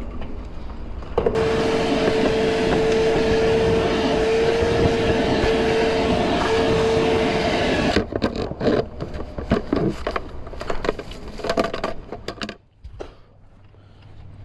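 A small motor runs steadily at one pitch for about seven seconds, switching on and off abruptly, followed by a few seconds of knocks and clatter.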